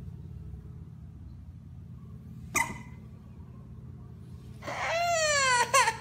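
Toddler crying. A short cry comes about two and a half seconds in, then a loud, high-pitched wail starts near the end, its pitch falling and broken once briefly. A low steady hum runs underneath.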